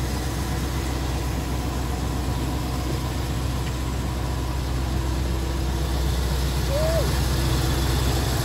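Engine of a 1972 Century 22-foot boat running steadily under way, a low steady drone. A short rising-then-falling tone sounds briefly about seven seconds in.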